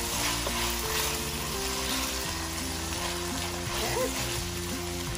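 Ground lamb with peas and carrots sizzling in a stainless steel skillet as it is stirred, over background music with held notes.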